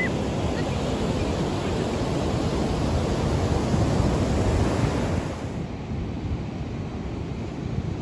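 Ocean surf breaking with wind rumbling on the microphone. About five and a half seconds in, the hiss of the surf drops away and mostly low wind rumble is left.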